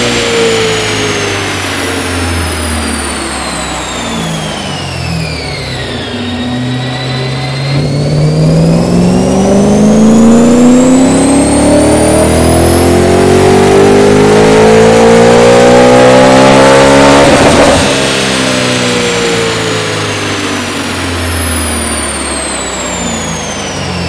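Supercharged BMW E92 M3 4.0-litre V8 on a chassis dyno, through an Akrapovic titanium exhaust: the engine winds down from one run, then makes a full-throttle pull that climbs steadily in pitch for about ten seconds with a high supercharger whine rising with it. The pull cuts off abruptly about three quarters of the way through and the engine and whine wind down again.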